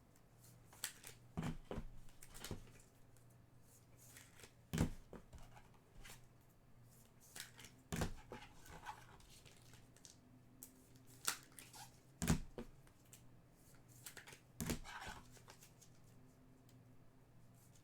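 Trading cards and foil pack wrappers being handled by hand: sharp taps and clicks every second or two as cards are set down and sorted, with brief spells of crinkling wrapper.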